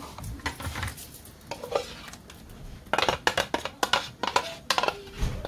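Clinks, knocks and scraping of a chopper jar and kitchen utensils against a glass bowl as chopped chutney is emptied out, with a run of quick knocks about three seconds in.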